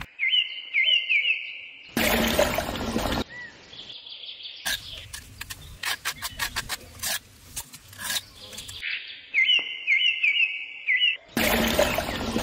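A small bird gives a quick run of rising chirps twice, once near the start and again past the middle. Between them come two loud bursts of scraping, each about a second long, and a string of sharp clicks and taps, from a trowel working wet cement mortar.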